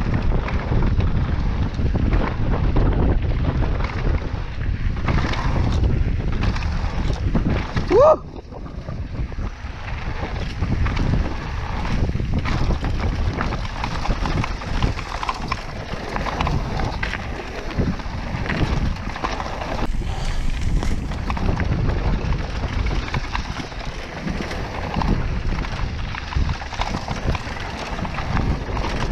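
Mountain bike descending a bike-park trail: wind rushing over the microphone, tyres on dirt and the bike rattling over bumps. A short rising squeal comes about eight seconds in, followed by a moment of lower noise.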